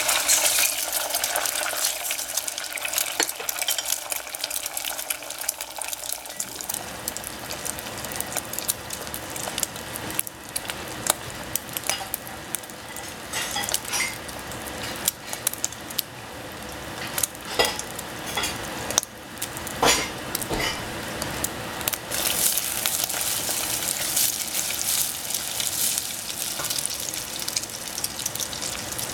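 Beaten eggs sizzling and frying in hot cooking oil in a stainless steel saucepan. The sizzle is loudest as the eggs go into the oil. Through the middle a wooden spatula knocks and scrapes against the pan now and then, and the hiss grows louder again near the end as the eggs are stirred.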